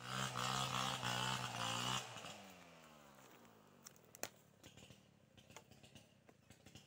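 A small engine running loudly at steady revs, then throttled off about two seconds in, its pitch sinking as it fades. A few light clicks follow.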